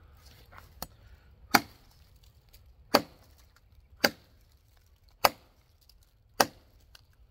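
Ontario machete chopping into a log: a light tap, then five hard strikes of blade into wood about a second apart.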